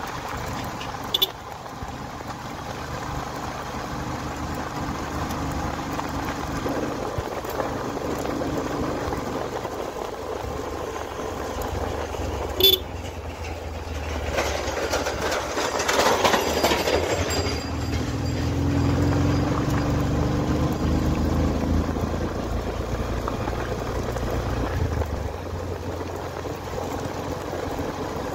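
Small motorcycle engine running steadily at road speed, with wind and road noise. There is a louder rush of noise around the middle and two brief sharp clicks, one about a second in and one just before the middle.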